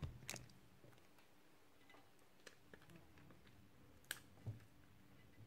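Near silence with a few faint clicks and taps from hands handling a glass vase, one right at the start and a pair about four seconds in.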